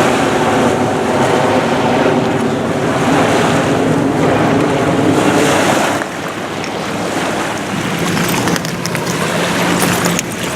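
Waves washing and breaking over a shore littered with old glass and landfill debris, with wind buffeting the microphone. Near the end a steady low hum joins in, with faint scattered clicks.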